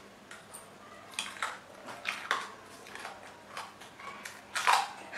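Crisp crunching of raw kakrol (spiny gourd) being bitten and chewed: a string of short, sharp crunches a half-second or so apart, the loudest a little before the end.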